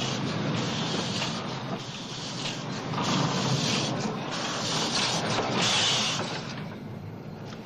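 Steam locomotive hauling a train past: a steady rush of steam and running noise with uneven heavier chuffs, fading away near the end.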